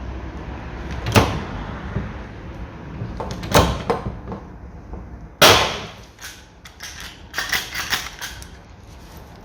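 Hand pop-rivet gun setting a rivet in a car window regulator, metal on metal. There are sharp snaps about a second in and at three and a half seconds, the loudest at about five and a half seconds, then a quick run of clicks near the end.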